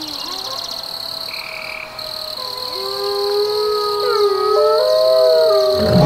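Wolves howling together: long, steady-pitched howls overlap, with more voices joining and growing louder from about halfway through. A steady high insect drone runs underneath.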